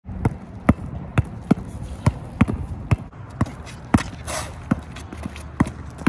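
Basketball dribbled hard on a concrete court: sharp bounces about twice a second, unevenly spaced. A short scrape comes a little after four seconds in.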